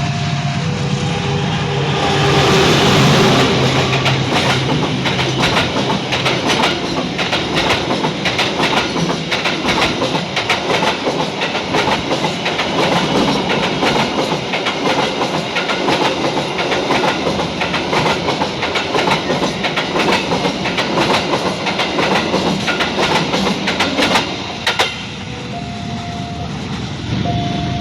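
Freight train passing over a level crossing. There is a loud rush as the locomotive passes about two seconds in, then a fast, steady clickety-clack of wagon wheels over the rail joints for about twenty seconds, which stops suddenly near the end. The crossing's two-tone warning alarm sounds at the start and again once the train has gone.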